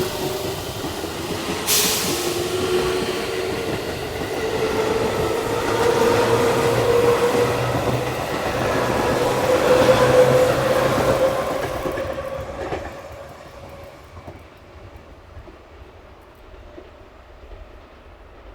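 Electric train pulling away: a motor whine that rises steadily in pitch over rumbling wheel noise, with a short hiss about two seconds in. The sound fades out after about twelve seconds.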